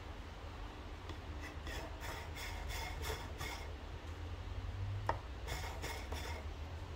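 A coffee distribution tool turned on a dosed espresso portafilter: metal rubbing and scraping against the basket in a string of short strokes. About five seconds in there is one sharp click as a tool is set onto the portafilter, then a few more scraping strokes.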